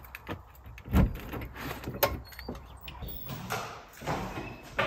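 A door being unlocked with a key and pushed open: a thump about a second in, then a sharp click and smaller clicks, followed by footsteps scuffing over the threshold.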